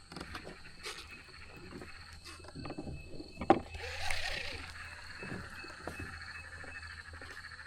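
Small knocks and clicks of fishing gear and paddle against a kayak hull, with a sharper click about three and a half seconds in followed by a brief swish.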